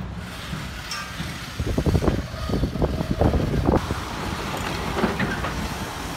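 Hyundai excavator running at a demolition site, its engine a steady low rumble, with a run of clunks and clatters of broken concrete rubble from about a second and a half to nearly four seconds in.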